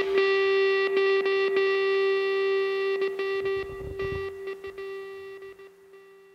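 Background music: one held note with many overtones that slowly fades out, broken by several short stutters.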